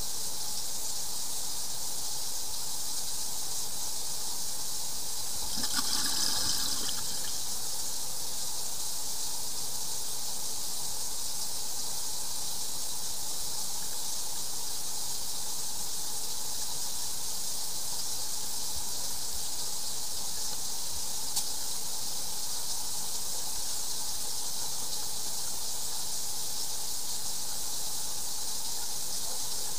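Steady rushing of water running through drain piping, with a brief louder surge about six seconds in.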